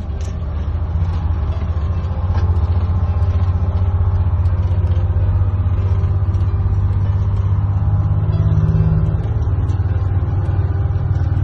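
1948 GM Greyhound Silversides bus's Detroit Diesel 6-71 two-stroke diesel engine running under way, heard from inside the driver's cab. It gets louder about two seconds in as the bus pulls on, then holds a steady low drone.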